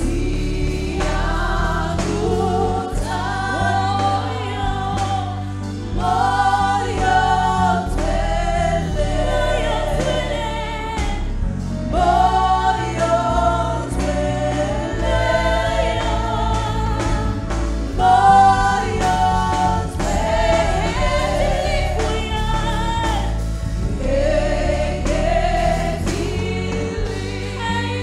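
Gospel worship song: several women singing together into microphones, backed by a live band with drums and keyboard.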